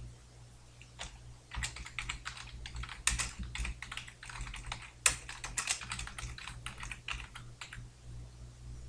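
Typing on a computer keyboard: a quick run of keystroke clicks that starts about a second in and stops about a second before the end, with a few harder strokes among them. A steady low hum lies underneath.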